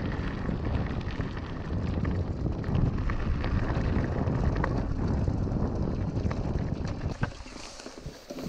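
Mountain bike riding a rough dirt track: wind buffeting the helmet microphone and the tyres rumbling over the ground, with scattered rattles and clicks from the bike. Near the end the rumble drops and a higher hissing comes in as the bike pushes through tall dry grass.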